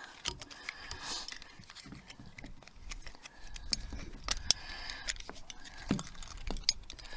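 Handling noise from the new coiled breakaway cable and its small metal fittings: scattered light clicks, taps and scrapes, with no steady sound.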